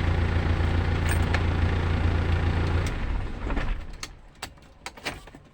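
Car engine running steadily, then shut off about three seconds in, followed by a few light clicks.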